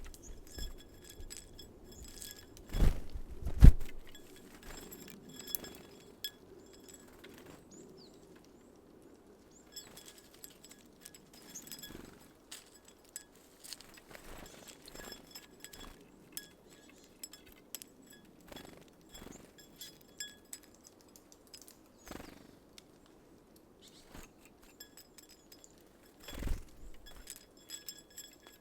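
Small birds working at a seed feeder: irregular light clicks and taps of pecking and hammering at sunflower seeds. There are two louder thumps, about three seconds in and again near the end.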